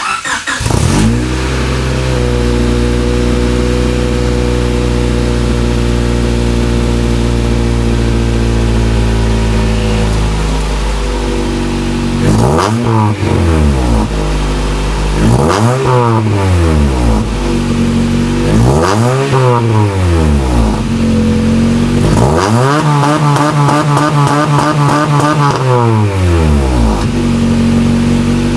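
Honda Civic four-cylinder engine starting through an aftermarket exhaust, then idling steadily for about ten seconds. It is then revved three times in short blips, followed by a longer held rev near the end.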